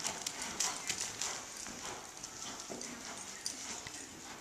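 Hoofbeats of a horse loping in arena sand, a rhythmic run of dull thuds, clearest in the first second or so and fainter after.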